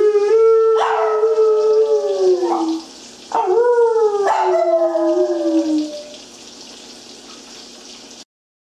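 Small shaggy dog howling: two long drawn-out howls, each sliding down in pitch as it ends. The second begins about three seconds in.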